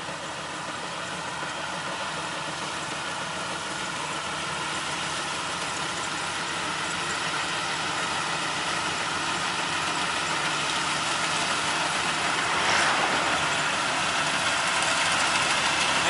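Maxxi BIMO-102L crawler rice combine harvester running steadily while cutting and threshing rice, a continuous mechanical drone that grows gradually louder as the machine comes closer.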